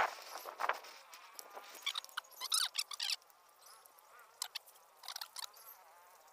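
Metal spatula scraping and clinking in a small wok as mushrooms are stirred: irregular sharp scrapes and clicks with a few squeaky tones, over a faint steady hiss.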